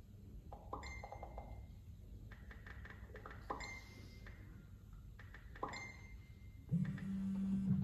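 Three short high pings, about a second, three and a half and nearly six seconds in, typical of message notifications on a mobile phone. Near the end comes a louder low steady buzz that stops abruptly.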